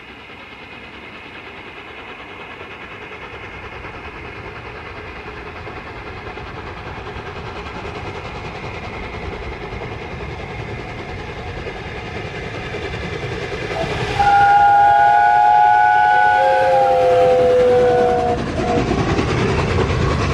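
Steam locomotive approaching and growing steadily louder, then sounding a chime whistle of several notes together for about four seconds, the notes sagging slightly in pitch before it stops; near the end the train's deep rumble swells as it comes close.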